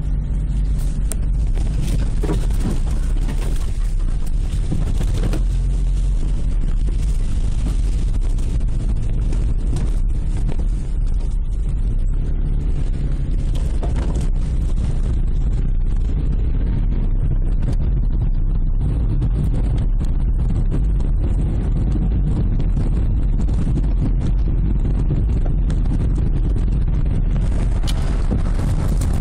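Car driving: a steady low road-and-engine rumble heard from inside the cabin.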